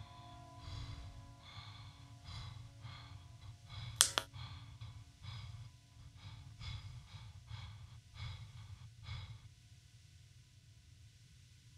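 Quick, uneven breaths or breathy gasps, one or two a second, over a steady low hum, with one sharp click about four seconds in. The breathing stops about nine and a half seconds in.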